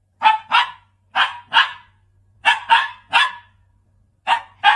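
A dog barking repeatedly: about nine short barks, mostly in quick pairs, with brief pauses between the pairs.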